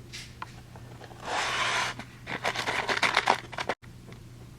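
Handling noise: a rasping scrape about a second in, then a quick run of scraping and rubbing strokes that cuts off suddenly near the end.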